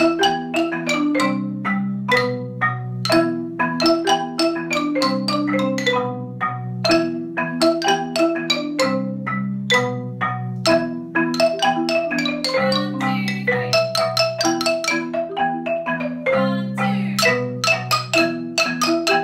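Several players on marimbas, striking the wooden bars with mallets in an ensemble piece: a quick run of struck notes over low notes that ring on underneath, several sounding at once.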